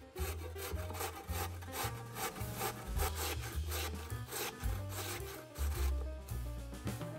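Raw potato being grated on a coarse stainless steel box grater: quick repeated rasping strokes, about two to three a second. Background music with a bass line plays underneath.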